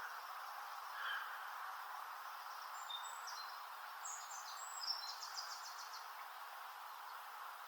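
Faint woodland ambience: a steady background hiss with a few short, high bird chirps and a quick trill of rapid notes a few seconds in.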